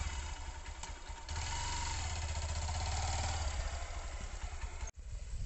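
Hero XPulse 200 motorcycle's single-cylinder engine running steadily at low revs.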